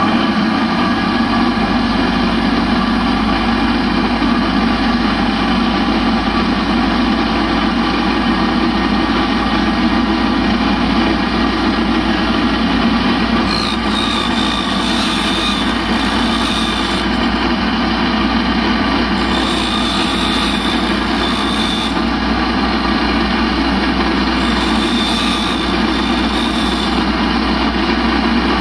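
Valve refacing machine motor running steadily while it grinds a motorcycle engine valve's sealing face back to a 45-degree angle. From about halfway a higher grinding whine comes and goes.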